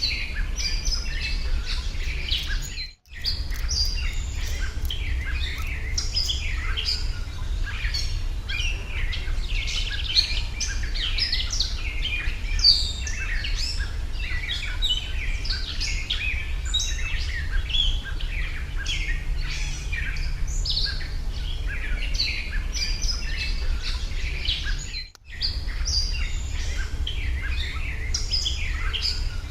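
A dense chorus of many small birds chirping and twittering, over a steady low rumble. The sound cuts out briefly twice.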